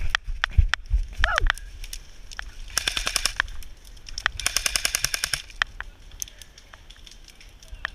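Airsoft guns firing: scattered single shots, then two rapid full-auto bursts about three and four and a half seconds in, each lasting about half a second to a second, with a few lone shots after.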